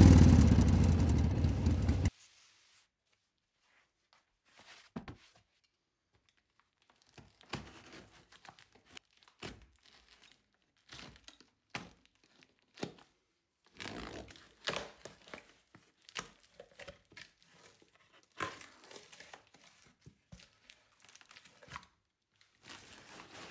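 A loud opening sound, heavy in the low end, cuts off abruptly about two seconds in. After it, a box cutter slices and tears the packing tape on a cardboard shipping box, and the cardboard flaps scrape and tap as they are opened, in short scattered sounds with gaps between.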